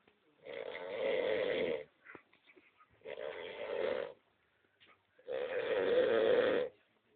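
A person snoring: three long snores, each lasting over a second, coming about every two and a half seconds.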